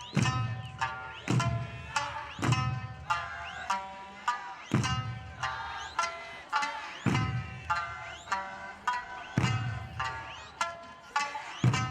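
Music: a plucked string instrument playing a quick melody over a steady drum beat of about one low hit a second.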